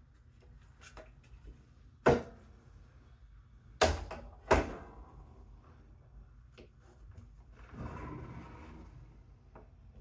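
Wooden folding attic ladder being folded up and swung into its ceiling hatch: three sharp wooden knocks, the last two close together, then a rubbing scrape for about a second near the end.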